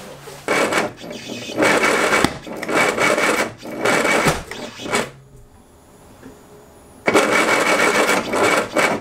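Classic Mini A-series four-cylinder engine with an Arden 8-port head being cranked on the starter in three bursts, a short one, a longer one of about three seconds, and another near the end, with a pause between. The engine does not catch: it won't start.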